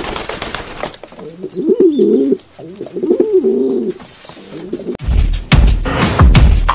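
A pigeon cooing: two rolling coos, low and wavering in pitch, after a brief rushing sound at the start. Music with a deep, pulsing bass beat comes in near the end.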